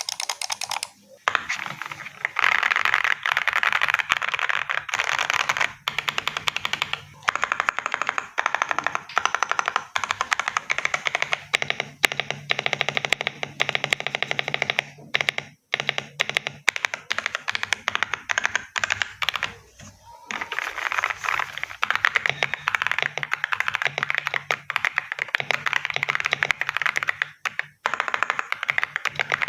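Fast, continuous typing on a Lingbao K87 Pro gasket-mount hot-swap mechanical keyboard: a dense rattle of key presses with a few short pauses.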